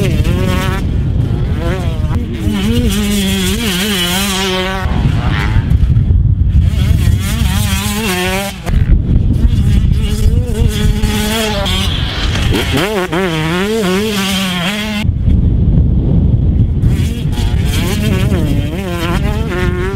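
A 2019 KTM 125SX's 125 cc single-cylinder two-stroke engine revving hard, its buzzing pitch climbing and dropping over and over as the motocross bike is ridden around the track, with a rough low rumble underneath.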